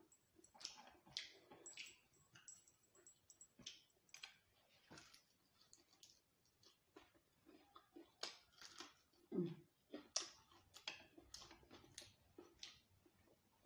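Faint close-up eating sounds: irregular mouth clicks and lip smacks while chewing food taken by hand, with one short low sound about nine and a half seconds in.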